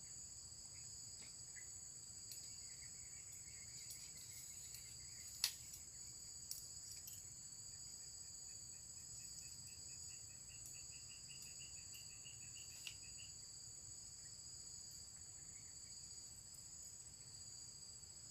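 A steady, high-pitched chorus of forest insects, holding two even pitches throughout. A faint rapid trill rises slightly in pitch from about eight to thirteen seconds in, and a few sharp clicks stand out, the loudest about five and a half seconds in.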